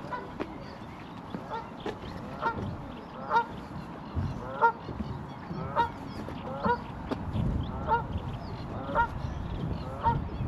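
Geese honking: a string of short honks at about one a second, over a low background rumble.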